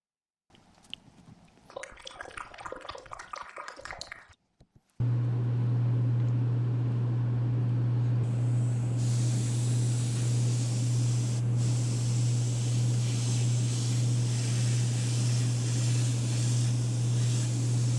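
Light clattering of small hard parts for a few seconds. About five seconds in, a small electric machine switches on and runs with a loud, steady low hum and a hiss; more high hiss joins a few seconds later.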